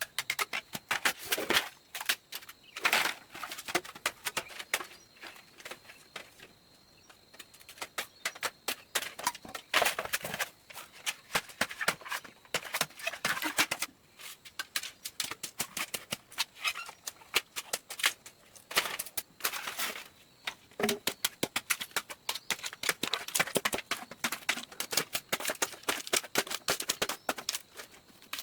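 Rapid, irregular sharp clicks and knocks, several a second, with two short lulls.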